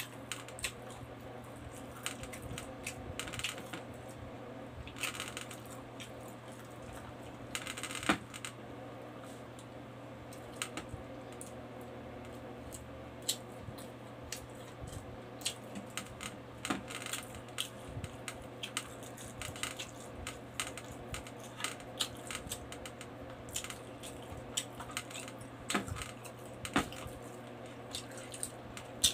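A person eating rice and pork by hand, close to the microphone: chewing with many small, irregular mouth clicks and smacks, over a steady low hum.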